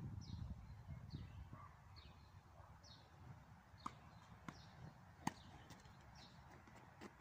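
A bird repeating a short, high, falling chirp about once a second, with a few sharp knocks of a tennis ball bouncing on the hard court and being struck by a racket, the loudest a little past the middle.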